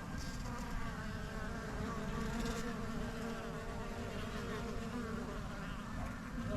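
A cluster of honey bees buzzing at a hive: a steady hum of many overlapping, wavering wing tones.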